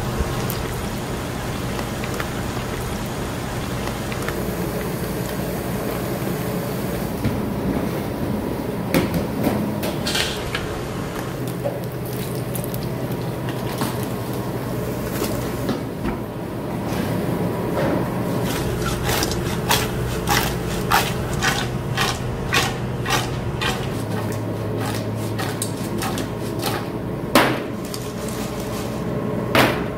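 Steady hum and hiss of a kitchen range with anchovies frying in a wok, then from about halfway a quick run of metal clacks and scrapes as a utensil works the fried anchovies through sauce in the wok, with two sharper knocks near the end.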